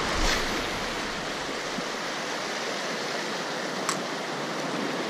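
Ocean surf washing over a rocky shoreline, a steady rush of water, with one short click about four seconds in.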